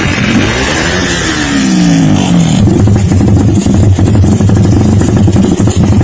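Motorcycle engine: its pitch falls over about two seconds, as a bike passing or easing off would sound. About halfway through, a loud, steady, rough engine note takes over close by.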